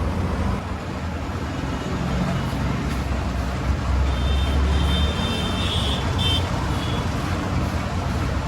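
Road traffic with a motor vehicle engine running nearby, a steady low hum. A few short high-pitched tones come in the middle.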